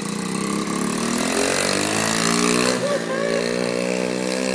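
A mini bike's small engine revving as it pulls away, its pitch climbing over the first couple of seconds and then holding steady as it rides off.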